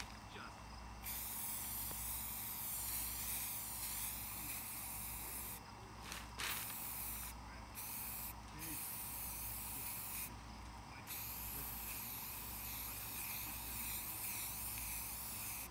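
Aerosol spray-paint can spraying in about five hissing bursts with short breaks between them, the first and last each lasting several seconds.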